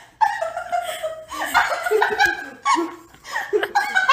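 People laughing in several bursts.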